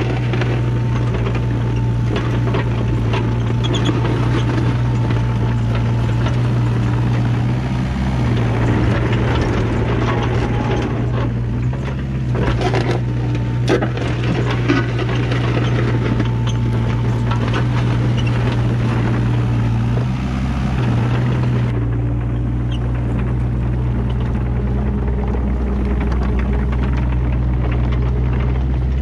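Kubota KX121-3 mini excavator's diesel engine running steadily under load as its dozer blade pushes and scrapes wet dirt and gravel, with a few sharp knocks midway.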